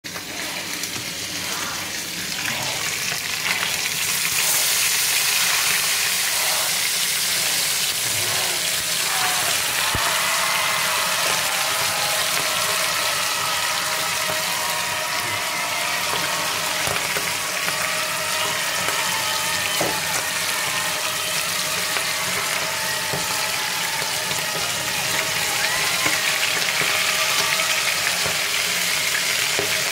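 Whole fish frying in shallow hot oil in a pan, a steady sizzle that grows louder about four seconds in.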